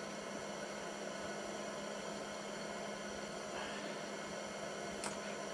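Steady low hum over a faint even hiss, with a soft rustle about three and a half seconds in and a single faint click near the end.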